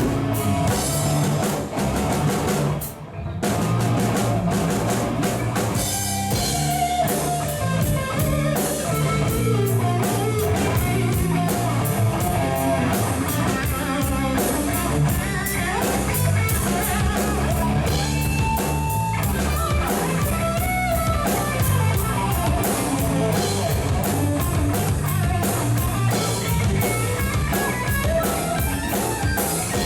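Rock music with guitar and drum kit, with a brief break about three seconds in before the band comes back in.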